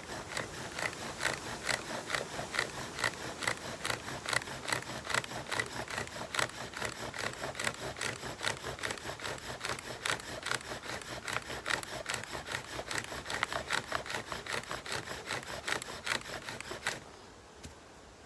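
Sycamore bow drill: the spindle grinds and squeaks in the hearth board with each back-and-forth stroke of the bow, a few strokes a second, charring wood into the hot dust that builds an ember. The drilling stops suddenly about 17 seconds in.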